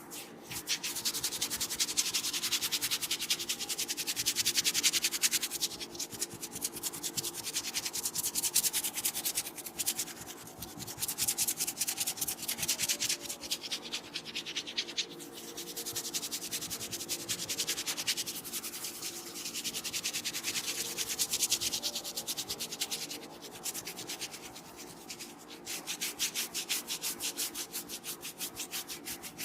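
Hands rubbing a head of hair in fast, even strokes close to the microphone during an oil head massage, in bouts of a few seconds with short pauses.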